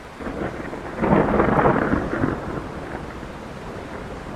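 A thunderclap over steady rain: the rumble swells about a quarter second in, breaks loudly at about a second, rolls on for a second or two and fades back into the rain.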